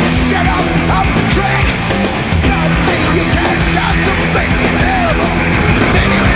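Loud rock music in a punk or heavy-metal style, playing without a break as the video's background soundtrack.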